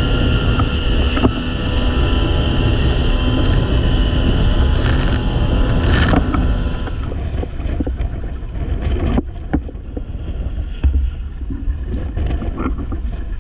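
A boat engine running under way, a steady low rumble with a whining tone on top, and wind buffeting the microphone. The whine falls away about halfway through, leaving the rumble and a couple of short knocks.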